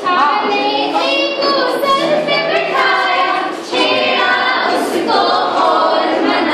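A group of women singing a song together in unison, without instruments.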